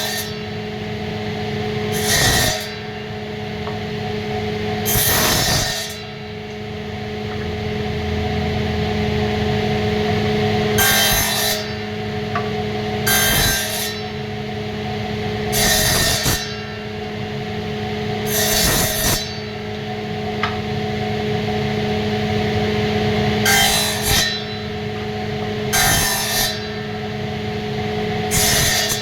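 Wood being worked by hand in repeated short rasping strokes, each about half a second long and coming every two to three seconds, over a steady low hum.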